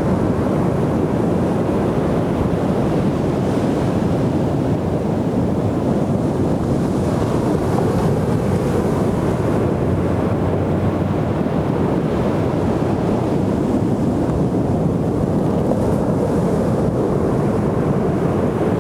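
Ocean surf washing onto a beach, a steady low rush of breaking waves with wind on the microphone.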